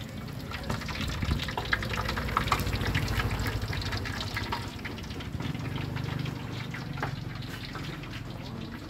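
Hot oil sizzling and crackling in a metal pot as flat round cakes deep-fry, with a few sharp clicks along the way.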